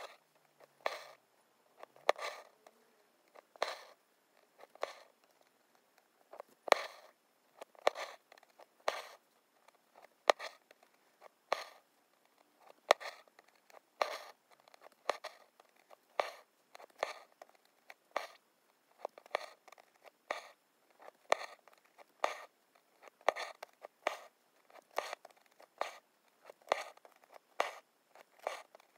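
Embroidery needle punching through fabric stretched taut in a hoop, with the thread drawn through after it. It makes a steady run of sharp ticks, a little under two a second, as the stitches are worked one after another.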